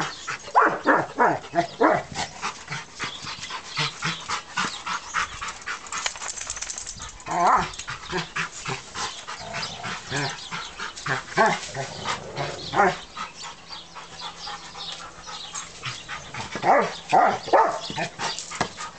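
Rottweilers whining and giving short barks in several bursts, over a continual run of quick scuffing and clicking.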